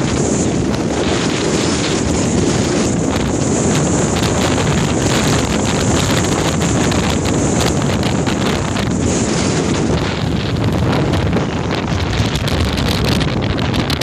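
Strong wind, up to about 80 km/h, blasting the microphone in a steady, loud rush, with wind-whipped choppy lake water splashing underneath.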